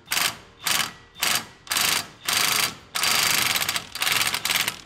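Impact wrench hammering in several short bursts, then a longer run of about two seconds near the end. It is driving a specialty tool to break free the plate on a BMW S54 VANOS unit.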